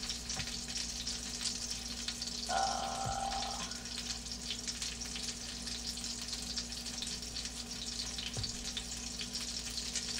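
Beef burger patties sizzling and crackling steadily in a nonstick frying pan. A short steady tone sounds for about a second, about two and a half seconds in.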